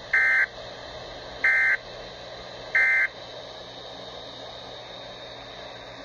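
Three short buzzing bursts of SAME digital data tones, the Emergency Alert System code, about 1.3 s apart, from a Midland weather radio's speaker on an Environment Canada Weatheradio broadcast. A faint steady hiss of the broadcast runs between them.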